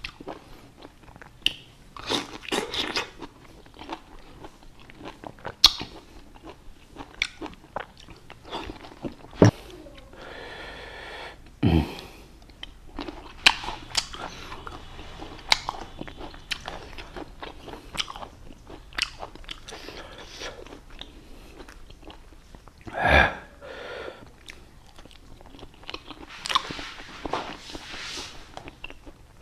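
A person eating fresh fruit, biting and chewing with crisp, crunchy mouth sounds at an irregular pace, with two louder bites about twelve and twenty-three seconds in.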